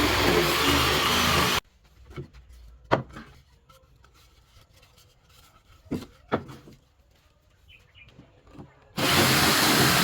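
A woodworking power tool running loudly cuts off abruptly about one and a half seconds in. The quiet that follows holds a few sharp knocks of wood being handled: one about three seconds in and two close together about six seconds in. The power tool starts up abruptly again about a second before the end.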